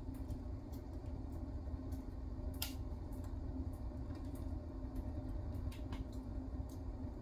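Wood fire burning in a homemade wood stove's firebox: a steady low rumble with a hum, and scattered sharp crackles, one louder than the rest about two and a half seconds in.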